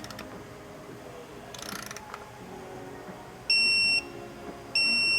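Digital torque wrench beeping twice, two short steady high-pitched tones about a second apart, signalling that the drain plug has reached its set torque of 21 ft-lb.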